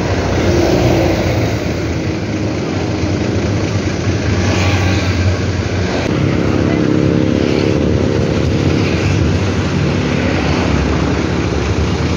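Nissan Diesel CB87L bus's diesel engine and growling "ngorok" exhaust, heard from the rear seat inside the cabin while the bus runs on the road. A deep, steady rumble with road and wind hiss, and a clearer droning engine tone from about halfway.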